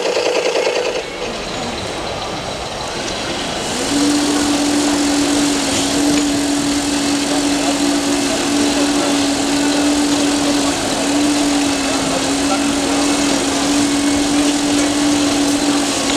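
A small electric motor buzzing briefly before cutting off about a second in. Then a steady mechanical hum from radio-controlled model vehicles over busy hall noise, with a constant low engine-like tone from about four seconds in.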